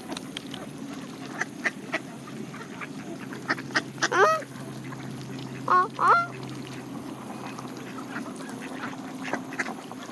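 Canada geese and mallard ducks feeding on seed: many short clicks and pecks of bills picking at the ground, with a few brief honking calls about four and six seconds in.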